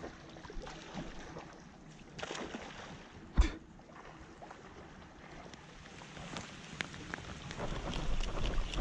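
River water running, with one sharp knock about three and a half seconds in and a few lighter clicks near the end.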